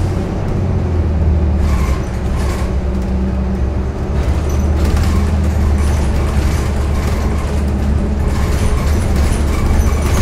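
Cabin sound of a 2018 New Flyer XDE40 diesel-electric hybrid bus under way: a steady low drone from its Cummins B6.7 diesel and hybrid electric drive. Brief rattles come every second or two.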